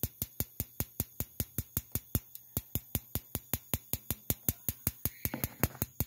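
Spark igniter on a Carrier 58GS gas furnace's three-wire pilot assembly ticking steadily, about six sharp clicks a second, as it arcs to light the pilot gas. The pilot has not caught yet.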